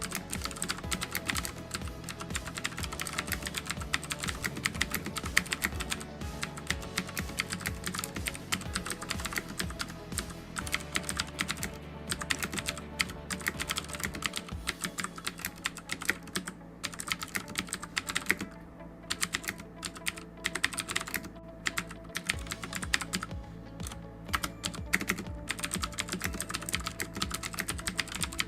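Fast typing on a Cooler Master QuickFire Rapid mechanical keyboard with clicky Cherry MX Blue switches: a dense, irregular run of sharp key clicks. Background music plays underneath.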